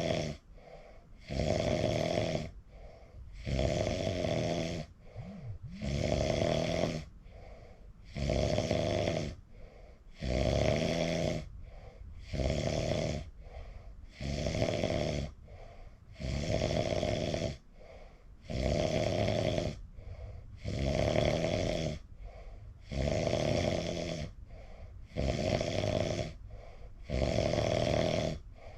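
A sleeping person snoring in an even rhythm, a snore about every two seconds with quieter breaths between.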